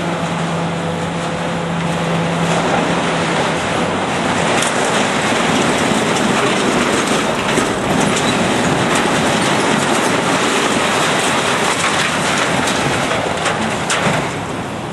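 Structural steel being torn, scraped and dragged by heavy demolition machinery: a loud continuous grinding, screeching din with many metal clanks. A steady diesel engine hum at the start fades under it about two seconds in.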